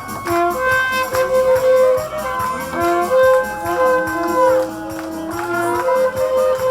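Instrumental music with a steady drum beat under a melody of held notes.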